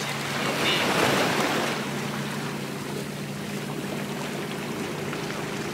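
Small ocean waves washing and breaking over jetty rocks, a steady rush of surf that swells louder about a second in, with a faint low steady hum beneath it.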